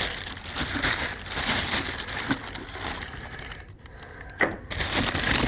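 Packaging being handled: crinkling, crackling and rustling, with a few small knocks and a brief quieter stretch a little before four seconds in.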